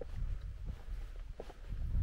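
Footsteps on a wet wooden plank boardwalk, with a few dull knocks, over a low rumble of wind on the microphone.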